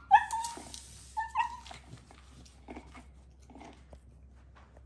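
A dog giving two short, high-pitched barks about a second apart, demand-barking at a treat-dispensing wobbler toy, followed by a few faint taps.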